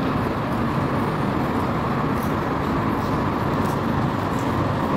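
Steady noise of a busy rail station platform as a crowd files onto an escalator and stairs.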